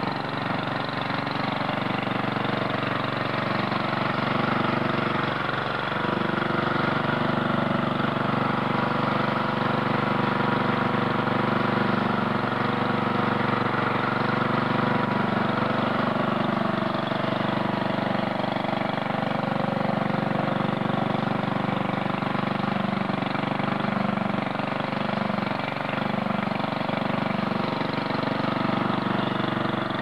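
Small garden-tractor engine running steadily while the tractor plows snow with a front blade.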